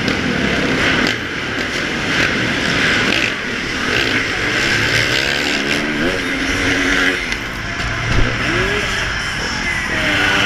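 Motocross bike engines revving, one climbing in pitch from about four to six seconds in and holding there, with shorter rises near eight and a half seconds and at the end, over a constant loud noisy background.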